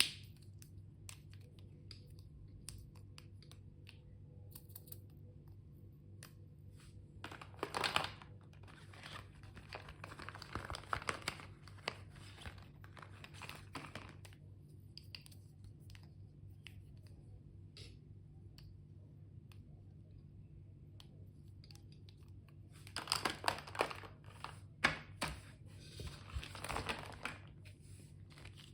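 Stationery packaging being unwrapped: crinkling and tearing of wrapping in two longer spells, with scattered small clicks and taps between them.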